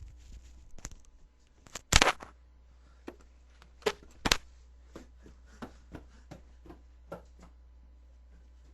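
A series of sharp clicks and knocks from objects being handled. The loudest comes about two seconds in and two more follow near four seconds, then lighter taps about every half second.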